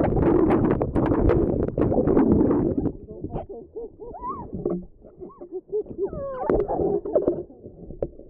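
Muffled churning rush of water heard from underwater as a kayak capsizes, with many knocks, for about three seconds. Then splashing at the surface and a woman's breathless, wavering gasps and cries without words.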